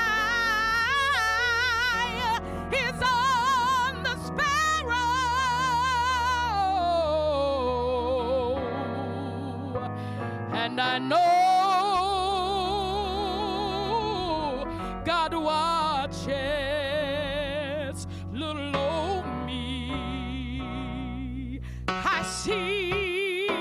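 A woman singing a slow song with a wide vibrato on long held notes, over a sustained instrumental accompaniment.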